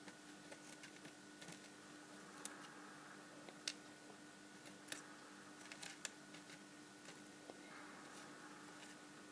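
Faint, scattered small clicks of tweezers and padlock pins and springs being handled while an Abus 72/40 padlock is gutted, over a faint steady hum.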